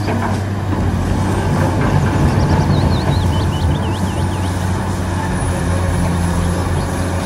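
Large Cat 345C hydraulic excavator's diesel engine running steadily under load as it digs rock, a low, even drone. A short run of high chirps sounds about two to four seconds in.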